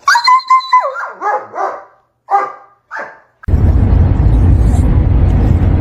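A small dog barking and yapping, about eight short high calls in the first three seconds. A little after that the barking stops and a loud, steady low noise takes over.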